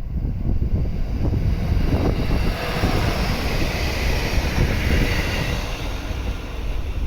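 JR East GV-E400 diesel-electric railcar passing, its engine and running noise building to a peak about five seconds in and then fading. Heavy wind rumble on the microphone runs underneath.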